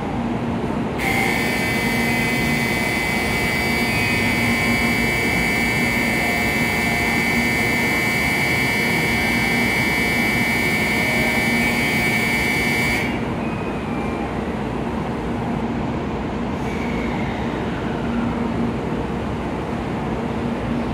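Electronic platform departure bell ringing loudly and steadily for about twelve seconds, starting about a second in and cutting off sharply. Under it runs the steady hum of the stopped N700A Shinkansen.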